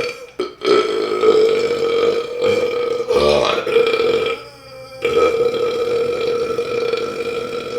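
Long, drawn-out belches from a man full of carbonated soda, having just chugged 1.25 litres of Pepsi. One held, even-pitched burp lasts about four seconds, wavering briefly near its end. After a short pause, another long burp starts about five seconds in.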